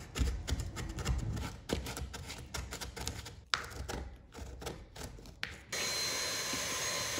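Wooden door trim being hand-sanded with an 80-grit sanding sponge in quick back-and-forth rubbing strokes. Near the end a cordless stick vacuum switches on and runs with a steady hiss and whine, sucking up the sanding dust.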